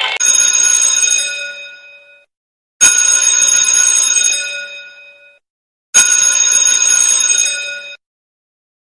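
A bell-like chime struck three times, about three seconds apart, each ringing out with several steady tones and fading over about two seconds; the third is cut off abruptly.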